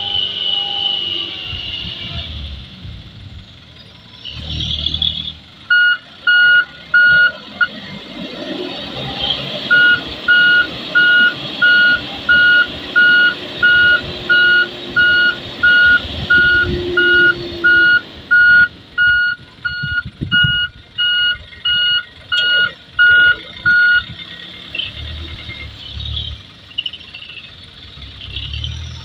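Dump truck diesel engine running under load while the tipper bed lifts, with a reversing alarm beeping steadily about twice a second from about six seconds in, pausing briefly about eight seconds in and stopping a few seconds before the end. The beeps are the loudest sound.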